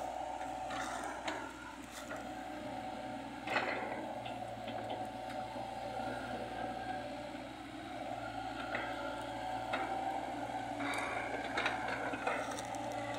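Komatsu mini excavator's diesel engine running steadily while it works the soil, with a few sharp knocks now and then, the loudest about three and a half seconds in.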